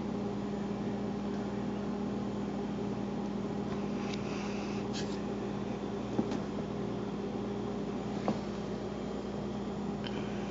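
A steady low mechanical hum, with a couple of faint short taps about six and eight seconds in as a cat bats a small felted toy around in a cardboard scratcher.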